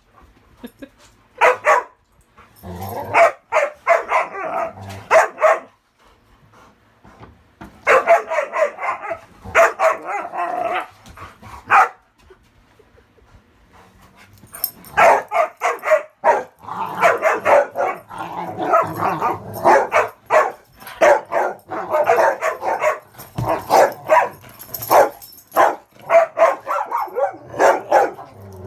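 Dogs barking in play: rapid runs of short, high-pitched barks and yips, including a Rottweiler's high-toned play bark rather than a deep guarding bark. The barking comes in stretches of a few seconds, with short lulls about 6 and 13 seconds in.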